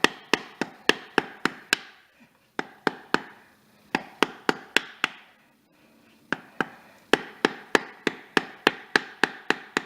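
Rapid light hammer taps driving a Porsche Tiptronic transmission pump (torque converter) seal into its bore through a block of wood, about four taps a second in three runs with short pauses between.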